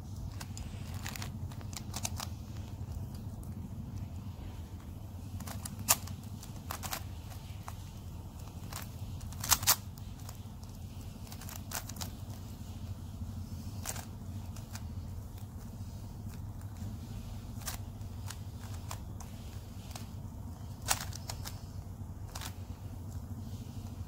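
Plastic windmill-style puzzle cube being turned by hand: irregular sharp clicks and clacks of its layers snapping into place, a few much louder than the rest (a double snap near the middle), over a steady low hum.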